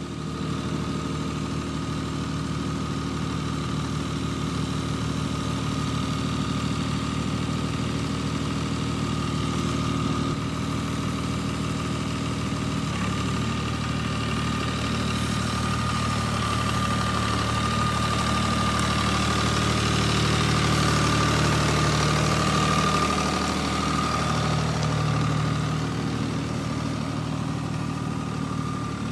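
John Deere utility tractor's diesel engine running steadily under load, with a steady high whine over it; the engine note shifts about halfway through.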